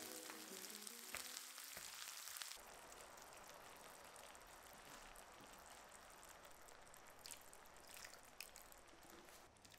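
Faint sizzling of food cooking in a pan, an even hiss with a few light clicks. Background music fades out in the first couple of seconds.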